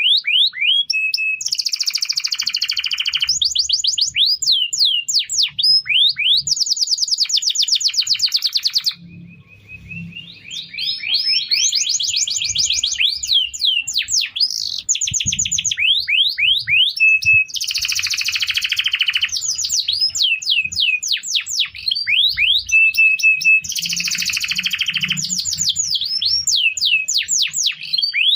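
Canary singing: long runs of fast repeated chirps and rapid trills, high and bright, with a brief break about nine seconds in before the song resumes.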